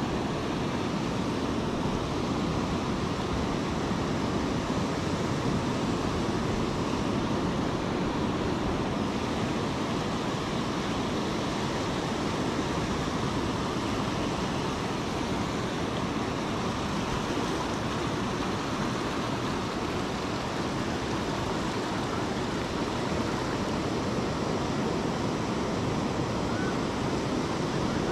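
Steady sound of sea surf washing in over a rocky shore.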